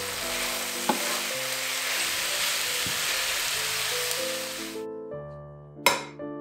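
Shredded cabbage sizzling in an oiled frying pan as it is stirred with a wooden spoon, over background music. The sizzle cuts off abruptly near the end, and then comes one sharp crack of an egg being broken on a ceramic bowl.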